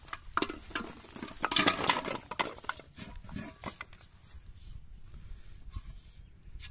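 Empty plastic soft-drink bottles rattling and clattering against each other and the aluminium pot as they are tipped out onto grass: a busy run of knocks lasting about three seconds, loudest near the middle, then softer handling sounds.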